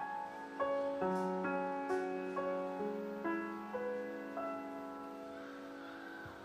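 Grand piano played solo, a new note or chord about every half second, then the last chord left to ring and fade over the final two seconds.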